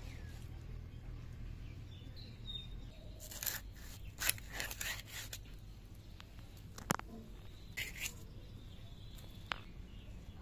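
Katla fish being scaled and cut on a bonti, a curved blade fixed upright: a run of quick scraping, crunching strokes a few seconds in, then a few single sharp clicks of the blade.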